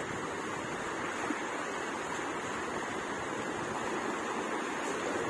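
Steady wash of small surf waves running up and draining off a sandy beach.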